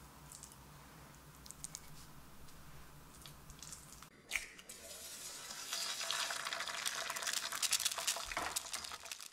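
Faint scratchy ticks as seasoned tuna is laid onto a bowl of bibimbap. About four seconds in, an egg frying in oil in a pan takes over, sizzling and crackling, louder from about six seconds.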